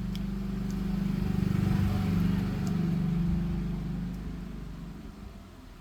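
A motor vehicle passing by: engine hum swelling to its loudest about two seconds in, then fading away.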